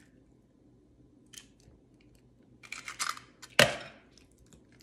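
An egg being opened into a glass bowl of ricotta and a spoon taken to the bowl: small clicks and scrapes of shell and spoon, then one sharp knock about three and a half seconds in.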